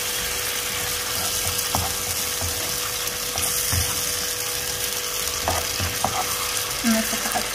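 Diced tomatoes frying in olive oil in a nonstick pan with a steady sizzle, as tomato sauce goes in and the mixture is stirred, with soft knocks and scrapes of the spatula against the pan.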